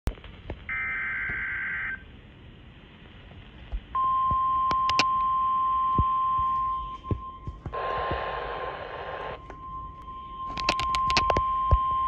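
NOAA Weather Radio severe-warning alert from a weather radio's speaker: a short burst of SAME data screech ending about two seconds in, then, from about four seconds in, the steady 1050 Hz warning alert tone that signals an incoming warning. A burst of noise overlies the tone near the middle, and a run of sharp clicks comes near the end.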